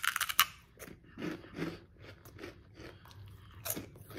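Crunch of a bite into a spicy queso Funyuns onion-ring snack, a loud cluster of cracks in the first half second, followed by softer, irregular chewing.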